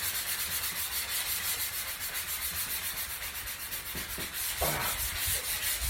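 Small hand sanding block rubbing back and forth over dried drywall joint compound, in quick even strokes about five a second.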